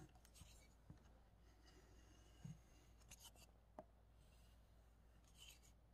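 Near silence with a few faint rubbing strokes of a steel knife blade drawn across a leather strop, and a couple of light taps.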